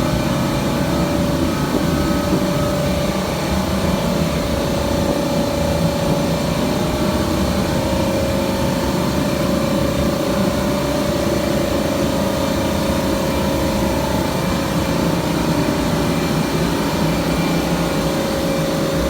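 An engine running steadily, with a constant drone and a mid-pitched tone that wavers only slightly.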